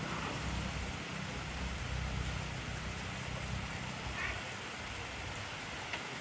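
Steady heavy rain falling, an even hiss with a few sharper drop ticks. A low rumble underlies it for the first few seconds and fades about four seconds in.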